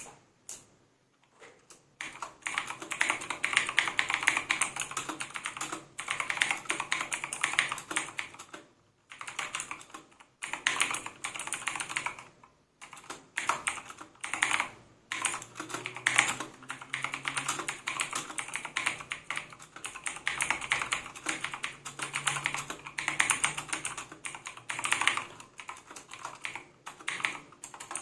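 Mechanical keyboard being typed on fast: a dense patter of key clicks in long runs, broken by brief pauses. A few single keystrokes come before the steady typing starts about two seconds in.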